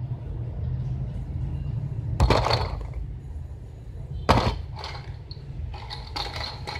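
A laptop being handled: two sharp knocks about two seconds apart, then lighter plastic clattering, over a steady low hum.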